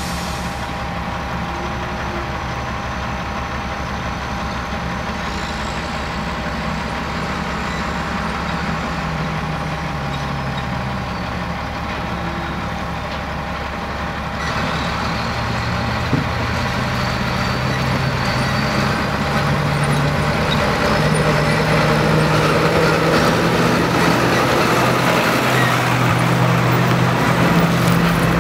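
Diesel engine of a New Holland tractor running as it drives up, towing a Bunning muck spreader. It grows louder from about halfway through as it approaches and passes close by near the end.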